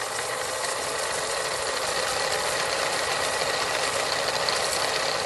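A steady, rapid mechanical rattle with a faint whirring hum, as of a machine running at an even speed.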